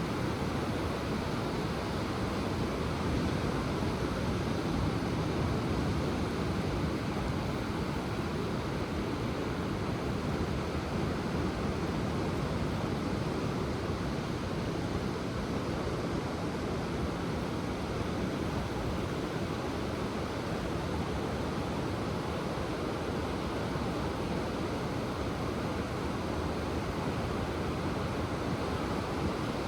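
Ocean surf washing steadily onto the shore, an even rush with no distinct wave breaks standing out.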